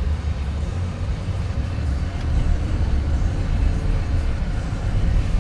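Steady low rumble of road and engine noise inside the cab of a 2005 Chevrolet Avalanche with a 5.3-litre V8, driving along; it gets a little louder about two and a half seconds in.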